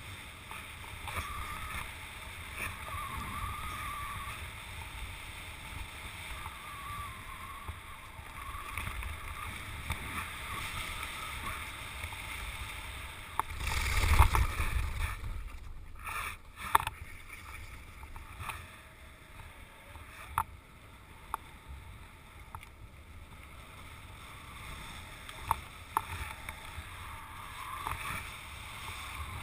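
Wind rushing over the microphone and skis hissing across snow. About halfway a louder gust buffets the microphone, and a few sharp clicks follow.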